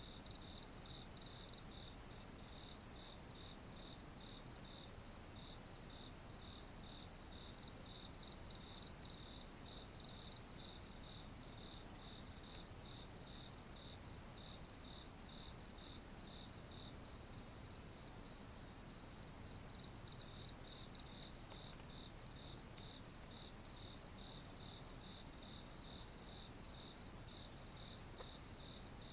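Crickets chirping: a steady high trill under a regular pulsing chirp about twice a second, with louder spells of rapid chirping three times, each a second or few long.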